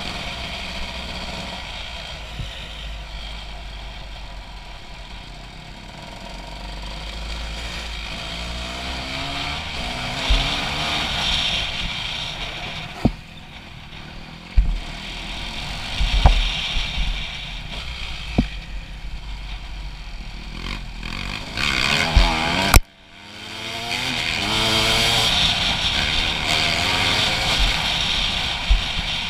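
Honda CRF250 single-cylinder four-stroke dirt bike with an HGS aftermarket exhaust, running and revving up and down as it is ridden. Several sharp knocks and clatters from the bike are heard in the middle, with one loud bang about 23 seconds in followed by a brief dip in the sound.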